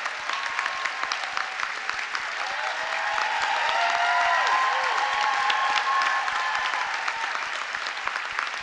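A large audience clapping, with a few voices cheering. The applause swells to a peak around the middle and then tapers off.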